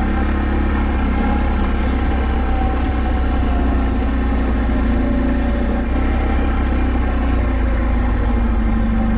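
ATV engine running steadily as the quad rolls along a rocky dirt trail: an even engine drone with no sharp revving.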